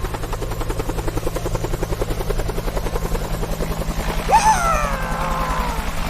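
Helicopter rotor sound effect, a steady rhythmic chopping. About four seconds in it is joined by a pitched whine that rises sharply and then slides downward.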